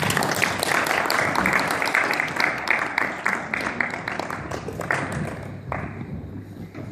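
Audience applauding, a dense patter of many hands clapping that thins out and stops about six seconds in.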